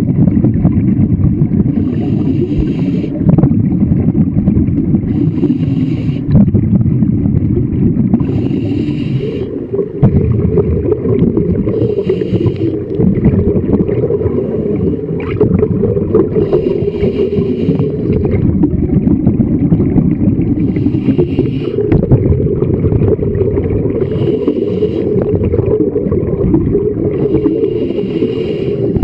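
Scuba diver's regulator breathing underwater: a short hiss of breath and bubbles about every three to four seconds over a steady muffled rumble of water against the camera housing.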